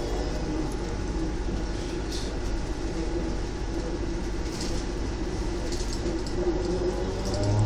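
Interior ride noise of a Skoda electric trolleybus under way: a steady low hum and rumble from the electric drive and the road, with a few light rattles.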